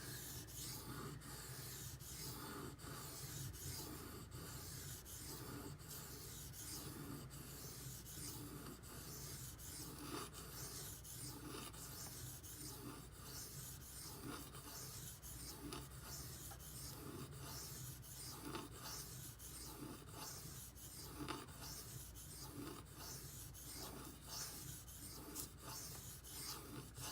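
Steel knife blade being stroked back and forth across a whetstone, faint repeated rasping strokes at an even pace.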